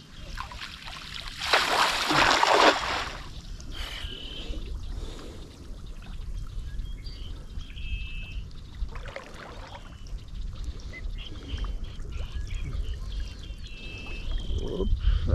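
Water splashing loudly for about a second, starting about a second and a half in, with softer trickling and splashing after it. A bird gives short high chirps three times.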